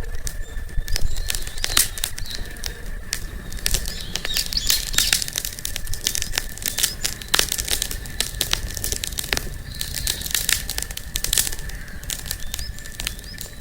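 Wood campfire crackling, with irregular sharp pops and snaps. A thin steady high tone sits underneath.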